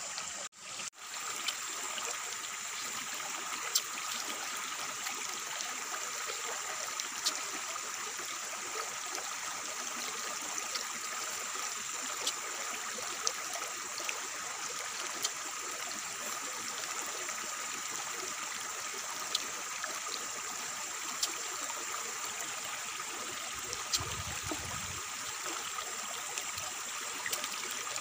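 Steady outdoor background rush with a constant high tone in it, dotted with small faint clicks every second or two, and one brief low bump near the end.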